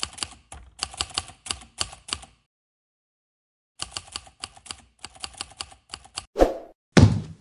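Typewriter sound effect: two runs of quick key clacks with a silent pause of about a second and a half between them, then two heavier thuds near the end.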